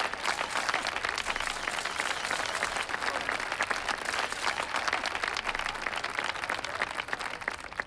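A crowd applauding steadily, thinning slightly near the end.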